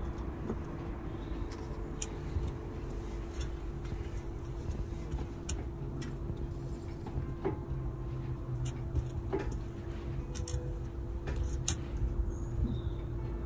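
Steady low hum and rumble with scattered light clicks and taps of small objects being set down and stacked.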